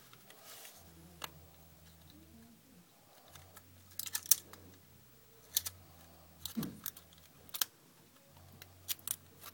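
Small sharp clicks and snaps of an iPhone 2G's parts being handled and pressed into place by hand, a few scattered through, the loudest about four seconds in.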